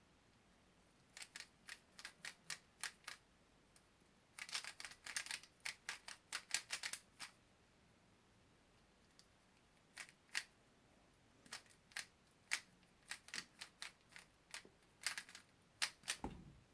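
Speedcube being solved by hand: its layers clicking sharply in fast clusters of turns, with short pauses between. A dull thump comes near the end.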